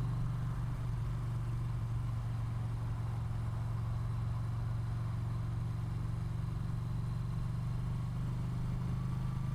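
2017 Yamaha Bolt's air-cooled V-twin engine running steadily at an even cruising speed under way, a constant low drone with a faint even rush of wind and road noise over it.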